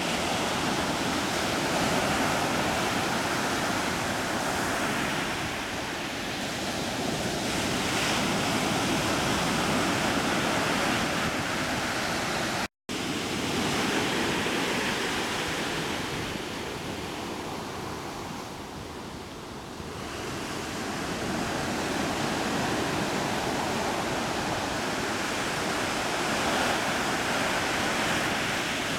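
Steady rushing noise of wind and surf off a choppy, whitecapped sea, swelling and easing slowly. The sound drops out completely for an instant about halfway through.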